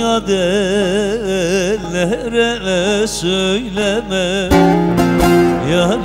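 Male voice singing a wordless, melismatic Turkish folk (türkü) line with heavy vibrato, accompanied by plucked bağlama (long-necked saz). A strummed chord on the bağlama comes about four and a half seconds in.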